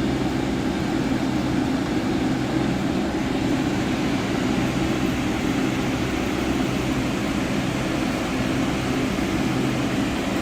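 A steady mechanical hum, like a motor or engine running without a break.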